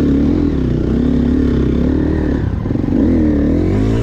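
KTM EXC 350's four-stroke single-cylinder engine under load, its pitch rising and falling as the throttle is worked on a climb.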